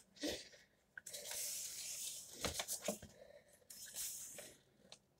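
Paper rustling as the pages of a paperback graphic novel are leafed through: two soft sweeps of rustle with a few light taps between them.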